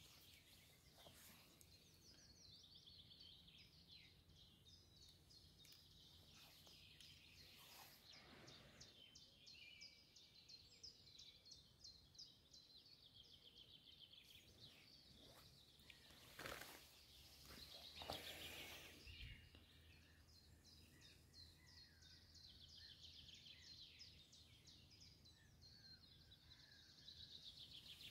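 Faint birdsong: small birds singing rapid, repeated trills and chirps over very quiet outdoor ambience. There are a couple of brief rustles about two-thirds of the way through.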